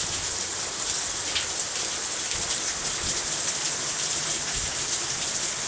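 Heavy downpour: a steady, dense hiss of hard rain with scattered drop ticks.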